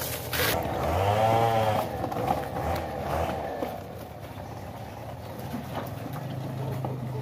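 An engine running at idle, revved up and back down once about a second in, then running on steadily at low speed.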